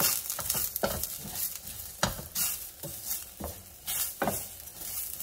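Long-grain rice and sliced onion sizzling as they toast in a stainless steel skillet, stirred with a wooden spatula that scrapes against the pan about six times at irregular intervals over a steady hiss.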